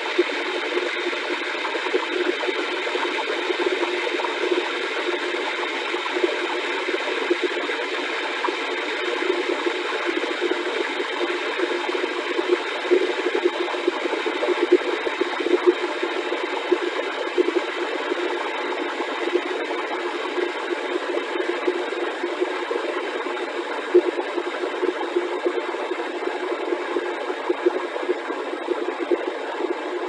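Electric kettle heating water towards the boil: a steady rushing noise with frequent small crackles, its strongest part fairly low in pitch. This is the noisy heating stage before the rolling boil.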